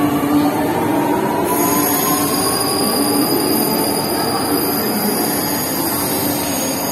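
Chennai Metro electric train (Alstom Metropolis) pulling out and accelerating away: a thin motor whine rising in pitch fades over the first couple of seconds, leaving the steady running noise of the train on the rails as it recedes.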